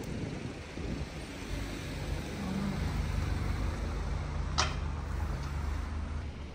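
Low, steady rumble of a car engine and street traffic, with one sharp click a little past the middle.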